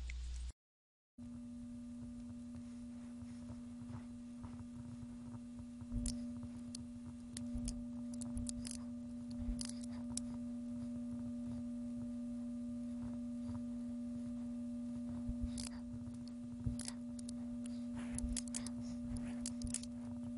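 A steady low-pitched hum, with faint computer mouse clicks scattered through. About half a second in, the sound drops out to dead silence for a moment.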